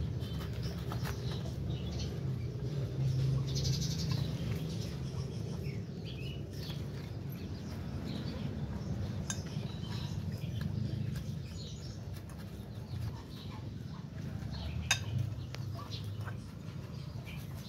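A litter of puppies eating rice from a plate, with small scattered clicks and clinks of the plate and their eating over a low steady rumble. The sharpest click comes about fifteen seconds in.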